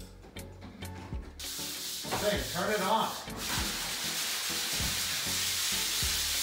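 Craftsman wet/dry shop vacuum switched on about a second and a half in, then running with a steady hiss.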